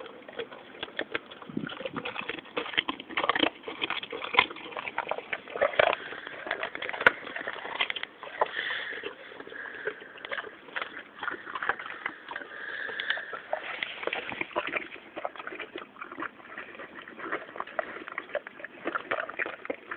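English Mastiffs chewing chicken carcasses: an irregular, continuous run of crunches and cracks as the bones are bitten through, with sniffing between bites.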